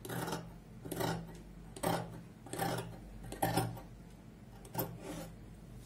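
Dressmaker's shears cutting through fabric on a table: a run of about six snips, roughly one a second.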